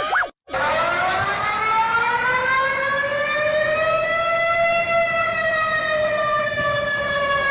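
Warning siren sounding one slow wail. After a brief break about half a second in, its pitch climbs for roughly four seconds, then slowly sinks again.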